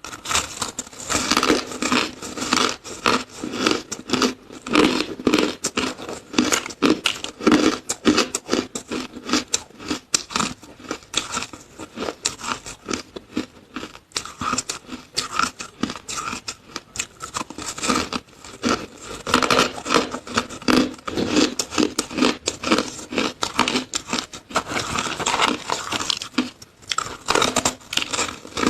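Close-up crunching and chewing of frozen flavoured shaved ice: a dense run of sharp, irregular cracks and crackles, several a second, in rapid bursts.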